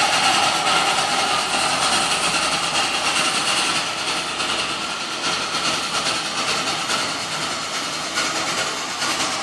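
Durango & Silverton K-36 steam locomotive No. 481 hissing steadily while it is turned on the roundhouse turntable. The sound eases off slightly as it turns.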